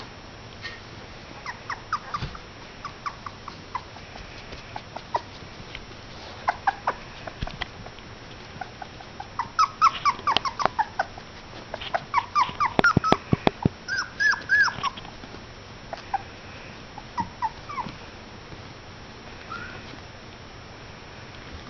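Border collie puppies playing, giving many short, high-pitched yips and whines, busiest around the middle, with a quick run of sharp clicks partway through.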